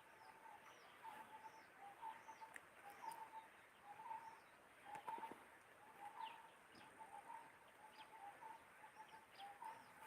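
Faint birds calling: a run of short notes repeating about twice a second, with thin higher chirps above them, over a quiet background.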